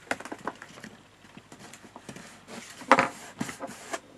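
Cardstock being handled and pressed down onto a glued flap: a run of irregular light taps and paper rustles, with the loudest knock and rustle about three seconds in.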